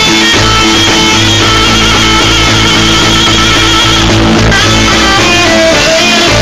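Loud amplified live band music: a tenor saxophone playing a melody over a held bass line and fuller accompaniment.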